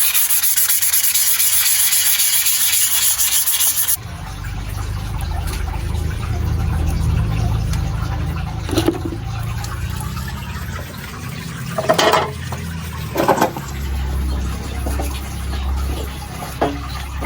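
Sanding of a rusty bicycle frame, a loud steady scratching that stops abruptly about four seconds in. A quieter low rumble follows, with a few sharp knocks.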